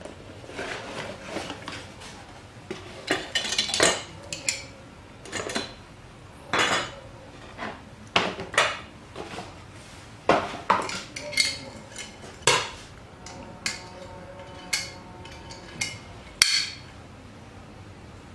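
Stainless steel kitchen tool parts clinking and clanking as they are handled, in irregular sharp knocks with a short ring after some of them.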